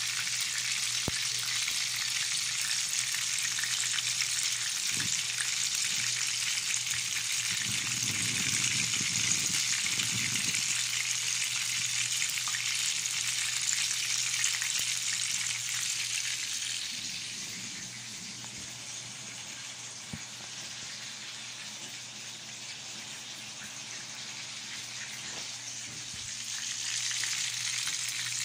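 Chicken karaage deep-frying in a pan of oil, a steady crackling sizzle of bubbling oil. It softens for several seconds past the middle, then comes back up near the end.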